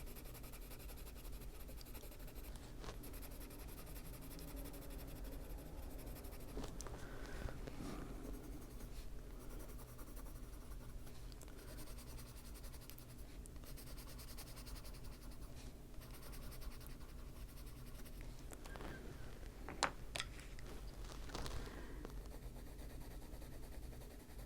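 Prismacolor colored pencil scratching faintly and steadily across paper as an area is colored in, with a couple of small taps near the end.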